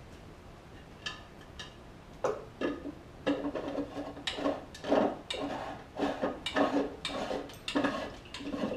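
Lid of a clear plastic coolant tank, a filter-housing canister, being set on and screwed down by hand. Plastic threads and shell give a run of irregular clicks, knocks and scrapes, starting about a second in.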